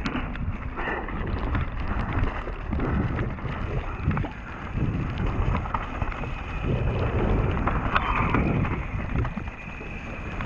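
Mountain bike rolling fast down a wet dirt trail: a steady rumble of knobby tyres on soil, the bike rattling over bumps, and wind buffeting the helmet camera's microphone.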